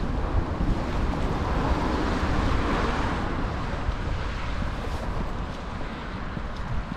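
Wind buffeting the microphone, with a low fluttering rumble, and a broad rushing swell that builds to a peak about three seconds in and then fades.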